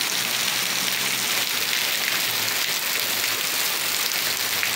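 Heavy rain falling steadily: a constant, even hiss of downpour during a severe thunderstorm.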